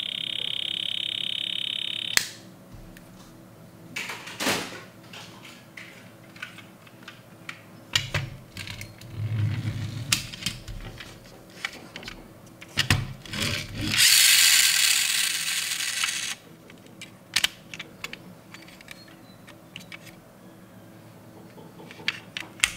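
Die-cast toy car models handled: a buzzy electronic tone from a toy car's sound module for about two seconds at the start, then scattered small clicks and taps of the models' opening doors being swung and snapped shut. About two-thirds of the way through comes a loud hissing burst lasting about two seconds.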